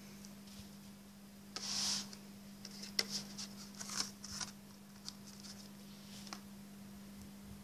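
Light handling of a smartphone's white cardboard box and inserts: a brief sliding swish about a second and a half in, then several light taps and clicks as pieces are lifted and set down, over a faint steady low hum.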